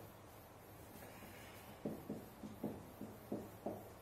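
Marker pen writing on a whiteboard: quiet at first, then a quick run of short strokes, about seven in two seconds, as a word and a bracketed pair are written out.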